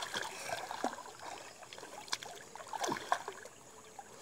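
Swimming-pool water lapping and splashing lightly at the tiled edge as swimmers move in it, with a few small sharp splashes.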